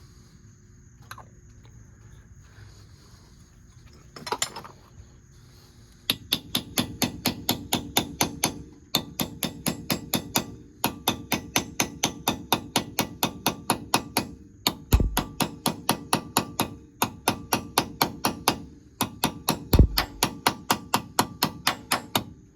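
Rapid, even hammer taps on a 1999 GMC Suburban's front wheel-hub dust cap, seating it over the freshly greased bearing: about five taps a second in runs of two to three seconds with short pauses. Two heavier blows land about midway and near the end.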